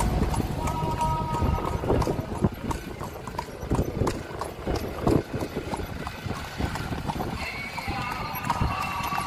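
Carriage horse's hooves clip-clopping on a paved street as it pulls the carriage, heard close up from the front seat.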